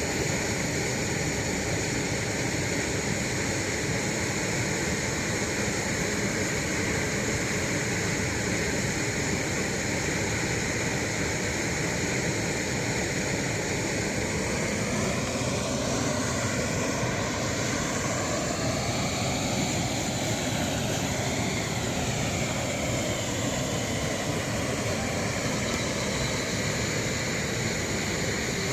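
Waterfall rushing in a steady, even roar. About halfway through its tone slowly sweeps and shifts for several seconds, then settles.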